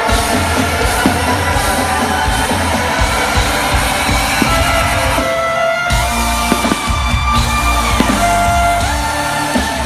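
Live dubstep-style electric violin music played loud through a concert PA: a heavy bass beat under held melody notes. The bass drops out briefly about five seconds in and comes back a moment later.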